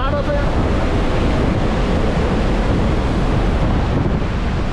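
Wind buffeting the microphone over the steady rush of sea around a ferry in rough water.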